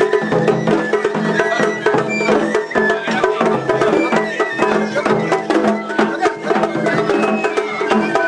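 Japanese festival float music (matsuri-bayashi), played continuously: fast, steady strikes of drums and small percussion under a high melody of short notes stepping up and down.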